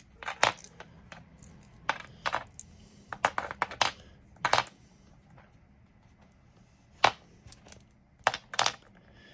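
Loose metal seat-mounting bolts clinking against each other as they are handled and sorted. The clinks come irregularly in small clusters, with a pause of about two seconds in the middle.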